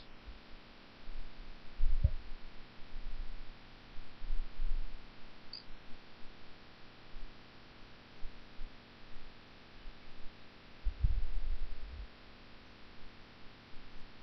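Quiet room tone with scattered dull, low thumps and bumps, the loudest about two seconds in and a cluster around eleven seconds.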